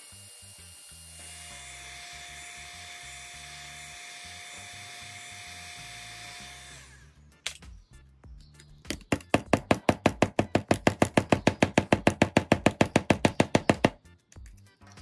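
Heat gun blowing a steady hiss of hot air onto the mould, stopping about seven seconds in. After a click, a loud, fast, even rattle of about eight beats a second runs for about five seconds and then stops.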